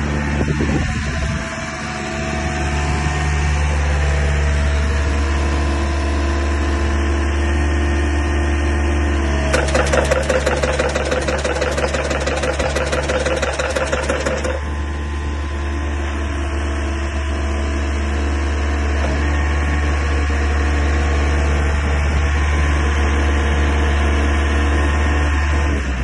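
Engine of a Mazaka MW1000 tracked pile driver running steadily. About ten seconds in, a fast, evenly repeating rattle joins it for about five seconds, then stops.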